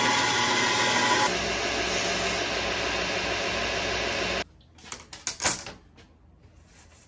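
Bandsaw running as it cuts a bamboo bow-backing strip. The steady noise cuts off suddenly after about four and a half seconds, and a few knocks and clicks of handling at the workbench follow.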